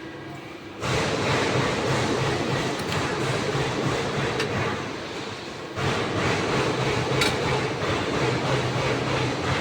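Machinery running with a steady noisy din and a low hum, growing louder about a second in and again around the middle.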